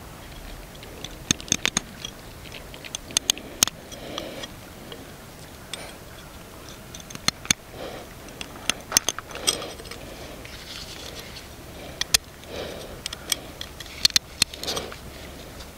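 Irregular sharp clicks and light clatter, some in quick clusters, with short rustling sounds in between.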